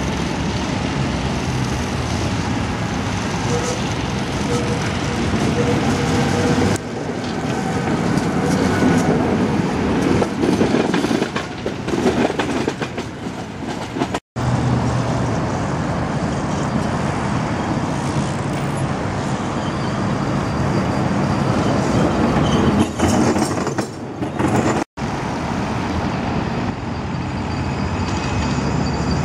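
Electric street trams, Tatra T3s among them, running along street track: a steady rolling rumble with a low hum, over city traffic. The sound drops out briefly twice, about halfway through and again near the end.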